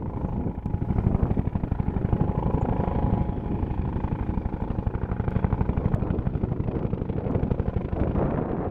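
Helicopter rotor beating fast and evenly, with a faint steady turbine whine over it.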